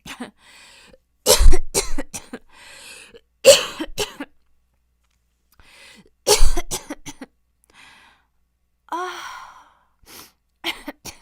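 A young woman coughing in three fits of several harsh coughs each, drawing breath in between, then a groaned "ah" and a few smaller coughs near the end. The coughing is a persistent cough that has left her throat sore.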